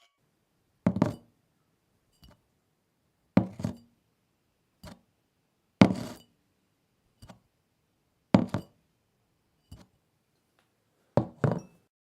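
A kitchen object being knocked: five heavier knocks about two and a half seconds apart, the last one doubled, with a light click between each.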